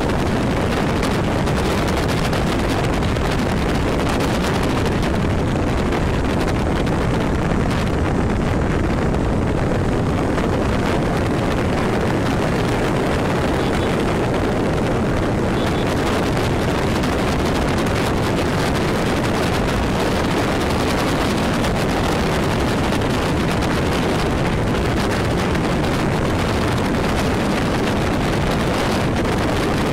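Steady wind noise buffeting the microphone of a camera on a vehicle moving at road speed, mixed with the vehicle's engine and road noise. No distinct engine note stands out.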